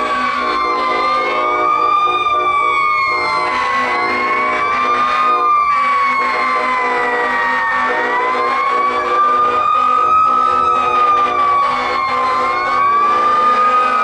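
Several fire truck sirens wailing at once, their pitches slowly rising and falling and crossing over one another, over a steady low drone.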